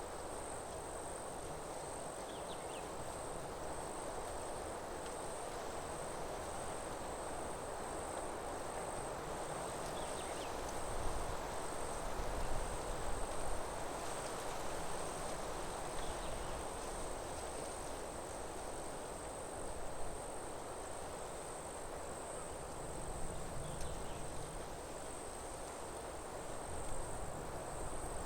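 Insects trilling in one unbroken high-pitched drone over a steady outdoor hiss, with a few faint short chirps.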